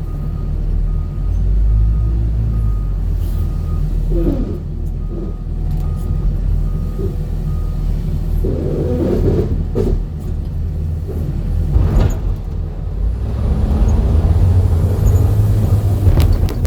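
Heavy road vehicle's engine rumbling steadily, with an evenly repeating high beep, like a reversing alarm, over the first few seconds.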